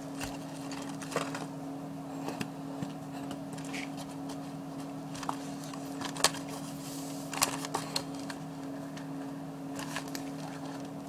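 Light taps and rustles of hands working a plastic squeeze bottle of glue against cardboard: a few scattered clicks, the sharpest about a second in and again around six to eight seconds in, over a steady low hum.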